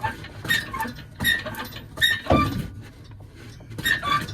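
Short metallic squeaks and knocks, four or five of them, as the engine and transmission are shifted on the hoist and pushed into place.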